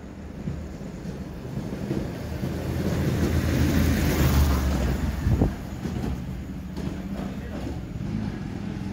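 A vehicle's low rumble passing close by. It builds over a few seconds, then drops off sharply about five and a half seconds in, over a steady low engine hum.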